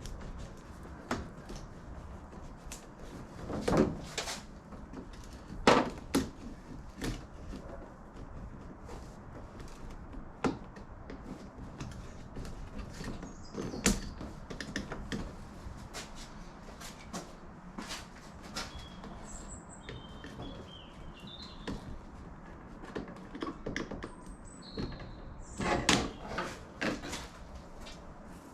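Scattered knocks, clicks and handling noises as the MG TF soft top's rear plastic screen and its metal retaining strip are worked free of the roof, with a cluster of louder knocks near the end. A few faint bird chirps come in partway through.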